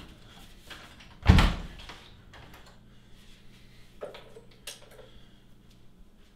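An interior door pushed shut with a single heavy thud about a second in. Later, two small clicks of a floor lamp's switch as the lamp is turned off.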